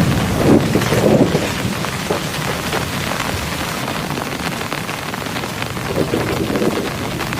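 Heavy rain falling in a dense patter of drops, with low rumbles of thunder swelling about a second in and again near the end.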